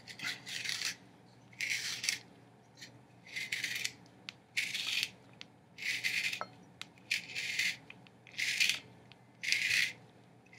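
A cucumber being twisted through a handheld spiral slicer's stainless steel blade, giving a crisp scraping cut with each turn: about eight strokes a little over a second apart.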